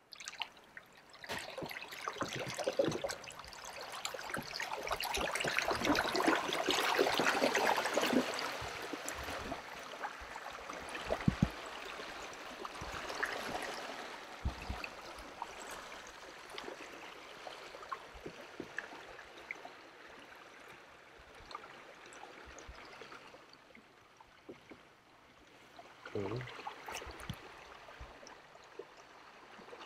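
Water rushing and splashing off a kayak's hull and wake as it is driven away under a Torqeedo Ultralight electric outboard. The sound swells over the first several seconds, then fades steadily as the boat moves off.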